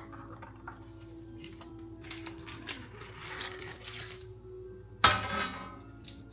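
Background music with light clicks and rustles of kitchen handling. About five seconds in, a hard dish is set down with one sharp clatter and a brief ring.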